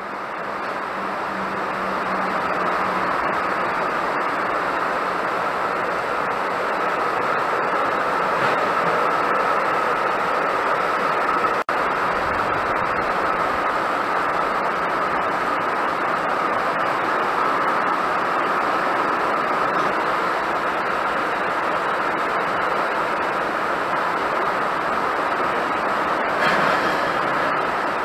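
Heavy rain drumming steadily on a corrugated metal roof in a tropical downpour, an even, unbroken hiss with a split-second dropout about twelve seconds in.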